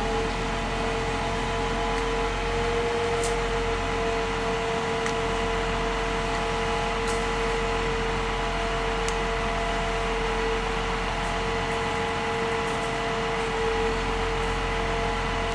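Steady mechanical hum of a motor running at one constant pitch, with a few faint ticks over it.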